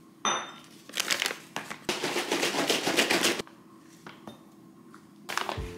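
Plastic pouch of dry pancake mix crinkling and rustling as it is handled and scooped from, in short bursts about a second in and a longer stretch from about two to three and a half seconds, then again near the end.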